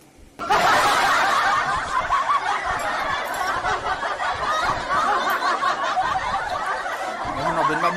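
Loud laughter that starts suddenly about half a second in and carries on without a break until near the end.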